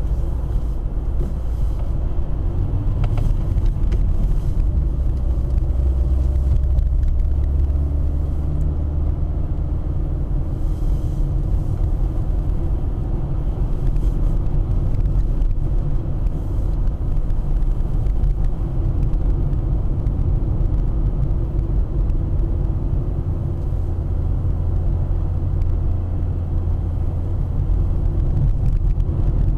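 Car in motion heard from inside the cabin: a steady low rumble of engine and tyre road noise.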